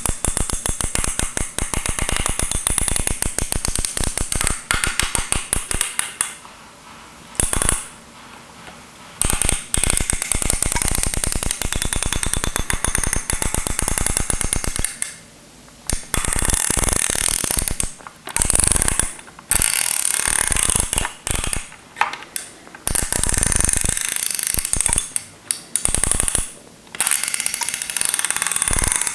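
The control dial of a steam iron being turned, clicking rapidly through its detent steps. The clicks come in runs of several seconds, broken by brief pauses where the turning stops.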